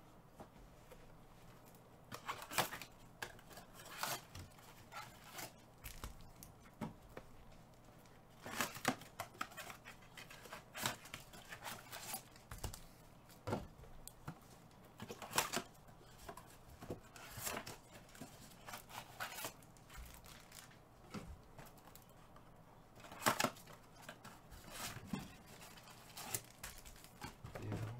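Scattered clicks, taps and rustles of cardboard and foil card packs being handled at the table, coming at irregular intervals over a faint low hum.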